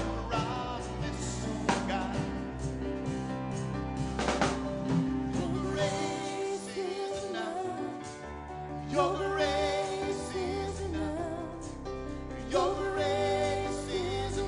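Live worship band playing a slow song on keyboard and drums with voices singing; the singing drops back briefly around the middle and comes back strongly about two thirds of the way through.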